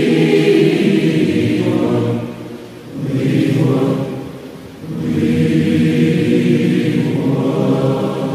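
Massed choir of thousands of voices singing a slow Latvian song in long held phrases. The sound thins out twice between phrases, about two and a half seconds in and again around four and a half seconds.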